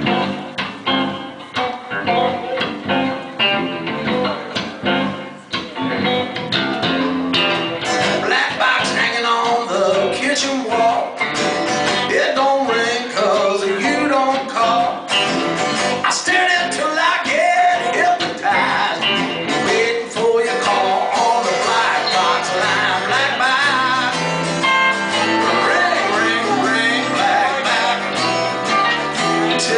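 Live band of guitar, bass guitar and drums playing a song, with the guitar to the fore.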